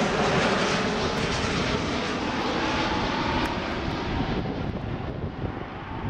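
Airbus A330-300 passing low overhead on landing approach with gear down: the rushing noise of its two Rolls-Royce Trent 700 engines, fading gradually as the jet moves away.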